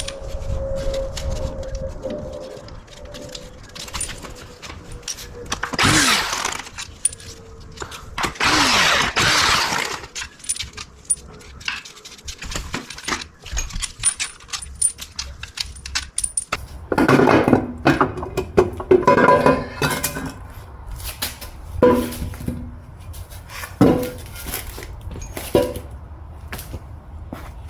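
Tools and bolts clinking and knocking against the metal of an automatic transmission as its bolts are taken out, with many sharp metal clicks. Two longer noisy bursts come about six and about nine seconds in.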